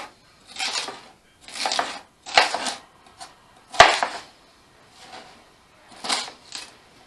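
Chef's knife slicing a green bell pepper into strips on a plastic cutting board: about half a dozen crisp cuts a second or so apart. Two of them end in a sharp knock of the blade on the board.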